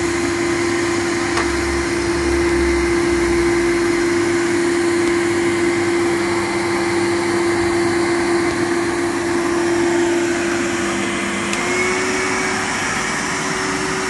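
Numatic cylinder vacuum cleaner motor running steadily, with a rushing air noise and a constant hum. The hum's pitch steps slightly higher about eleven seconds in.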